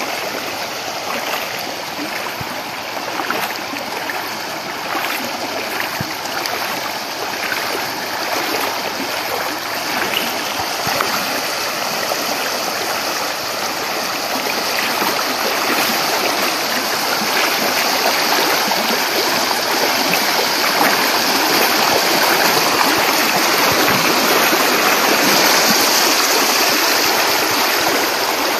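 Floodwater rushing fast over a submerged road and spilling into flooded paddy fields: a steady whooshing of turbulent water that grows louder through the second half.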